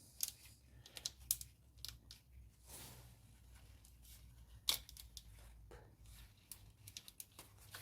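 Faint scattered clicks and short rustles of rubber and plastic as the spark plug ignition leads are pushed back on; the sharpest click comes a little under five seconds in.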